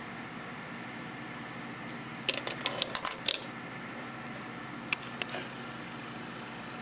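Stainless steel watch bracelet clinking as it is handled and set down on a surface: a quick run of sharp metallic clicks about two seconds in and a few lighter ones near five seconds, over a steady low hum.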